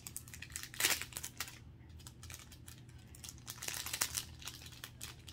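Thin clear plastic packaging crinkling and rustling as it is handled and pulled open, in irregular crackles that are loudest about a second in and again around four seconds in.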